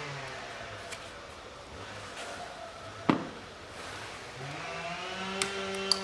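Plastic ignition-coil electrical connectors being unclipped on the engine, with one sharp click about halfway through and two lighter clicks near the end. A steady machine hum runs behind, dies away, then comes back rising in pitch near the end.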